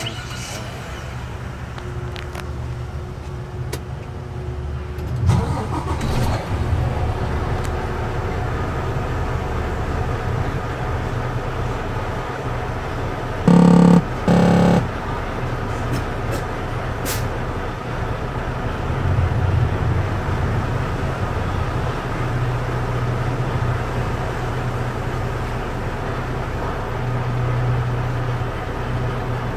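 Truck engine heard from inside the cab, catching about five seconds in and then idling with a steady low rumble. Two short, loud horn blasts sound about halfway through.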